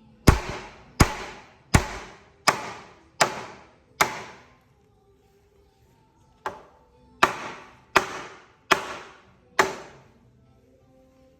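Hammer or mallet blows on wood, as in woodworking joinery: six steady strikes about three-quarters of a second apart, a pause of about two seconds, then five more, each ringing briefly.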